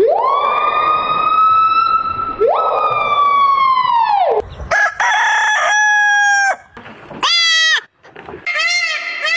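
Rooster crowing, one long crow lasting about four seconds, followed by a string of short steady tones, a quick rising whistle-like glide and a warbling, siren-like sound near the end.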